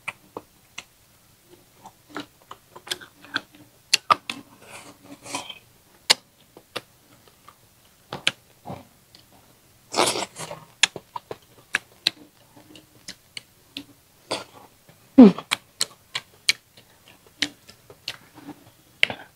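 Close-miked eating sounds: irregular wet clicks and smacks of chewing rice and braised fish, with chopsticks clicking against the rice bowl. A louder breathy burst comes about ten seconds in.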